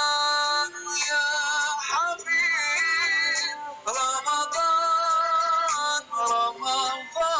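Background music with a processed, synthetic-sounding singing voice holding notes and gliding between them.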